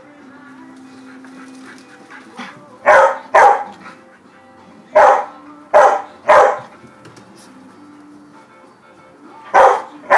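Old English Sheepdog barking, about seven loud single barks in twos and threes, over quiet background music.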